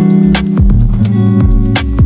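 Background music with plucked guitar, a deep bass and a steady drum beat about two hits a second.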